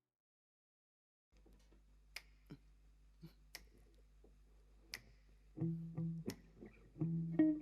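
Silence for about a second, then a faint low hum with scattered sharp clicks, before a guitar begins playing short, repeated chords a couple of seconds before the end.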